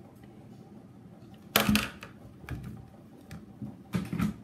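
Speed Stacks plastic sport-stacking cups clacking against each other and on the mat as they are handled, in a few short clatters. The loudest comes about a second and a half in, and another near the end.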